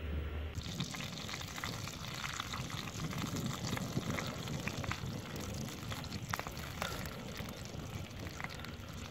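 Spotted doves sizzling on a hot flat stone over a wood fire, their juices spitting and crackling with many small pops. The sound jumps in about half a second in.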